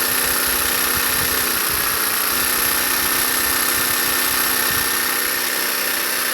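Einhell TC-JS 18 Li cordless jigsaw running free with no workpiece, its blade stroking in the air, a steady motor hum with a high whine on top. It cuts off suddenly at the end.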